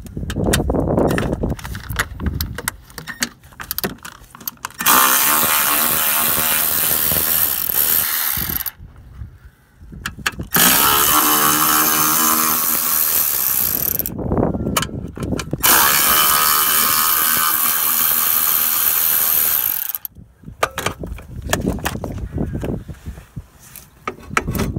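A power tool runs in three long runs of about four seconds each, its pitch shifting as it works. Clicks and clinks of tools being handled come before the runs and again near the end.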